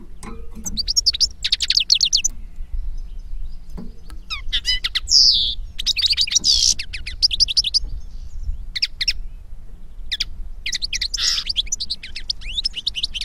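European goldfinch and common linnet song: fast twittering phrases of short, high notes in bursts with brief pauses between them, over a faint low hum.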